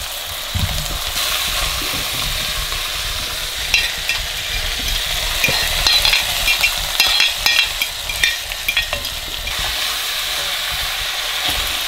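Pigeon halves sizzling as they brown in oil in an enamelled cast-iron cocotte, a steady frying hiss. Midway comes a run of clicks and scrapes as sliced carrots are pushed off a lid into the pot and stirred with a utensil.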